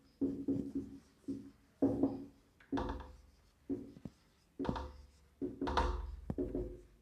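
Marker pen squeaking and scratching on a whiteboard in a run of short strokes as words are written.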